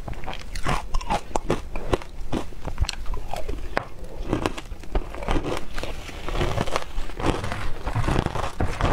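Crushed ice coated in matcha powder being bitten and chewed, with many irregular sharp crunches and cracks.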